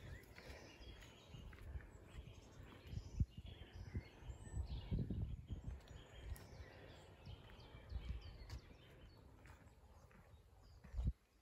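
Faint woodland ambience: small birds chirping now and then in the bare trees, over irregular low thuds, loudest about five seconds in.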